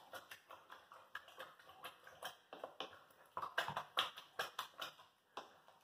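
Wooden spoon stirring thick chili of beans, corn and ground beef in a stainless steel pot: short, irregular wet clicks, several a second, louder about halfway through.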